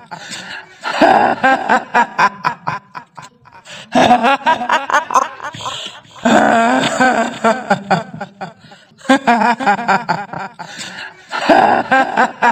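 A ghostly female cackle, the 'hihihi' laugh of a kuntilanak, coming in repeated bouts of rapid pulses.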